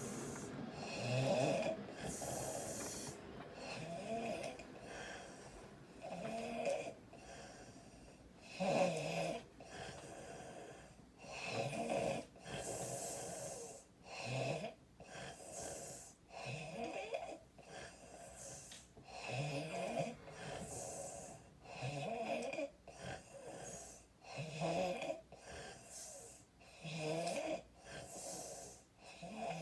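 A sick woman snoring loudly through an open mouth, one rasping snore after another in quick, uneven succession.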